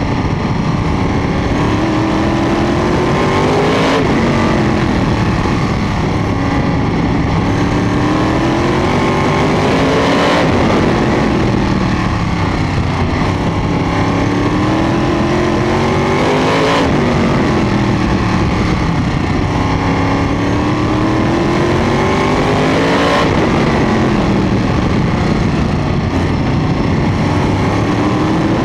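Sprint car's V8 engine heard on board at speed on an oval: the pitch climbs steadily as it accelerates down each straight, then drops sharply as the throttle is lifted for the turn. This happens four times, about every six and a half seconds.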